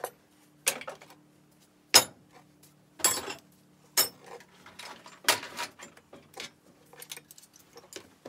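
Metal hand tools (a hammer, screwdrivers and wrenches) clanking and clinking as they are picked up, moved and set down on a wooden workbench. It comes as a dozen or so irregular knocks and rattles, the loudest about two seconds in.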